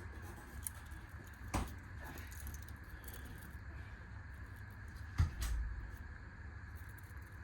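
Two sharp knocks over a steady low hum, the second, about five seconds in, louder and followed by a brief low thud.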